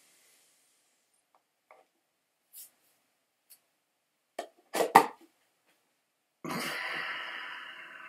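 A man's short burst of sharp coughs, several in quick succession, about halfway through, after inhaling dry table salt from the canister's spout. Near the end comes a long, steady breath out that slowly fades.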